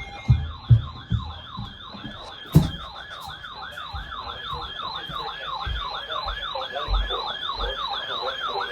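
Emergency vehicle siren on a fast yelp, rising and falling about three times a second and growing louder toward the end. A few low thumps in the first three seconds, the loudest about two and a half seconds in.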